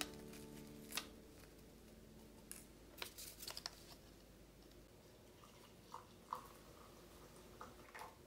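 Quiet tabletop handling: a few soft paper rustles and light clicks as a tea bag is taken from its paper sachet and put into a ceramic mug, with near-silent room tone between.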